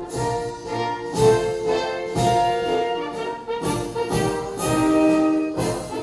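Brass-led band music playing, with sustained chords and strongly accented beats.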